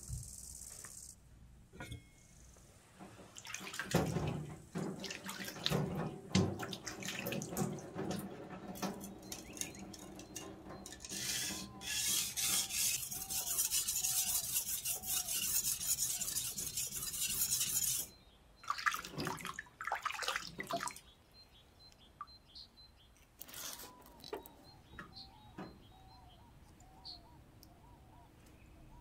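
Water running and splashing at a workshop sink while a #400 whetstone is wetted and handled. The running water cuts off suddenly about two-thirds of the way through.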